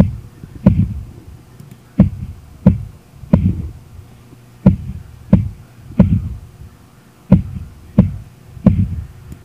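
Deep kick-drum hits of a hip-hop beat, about one and a half a second in a repeating pattern with some beats left out, before any vocals come in.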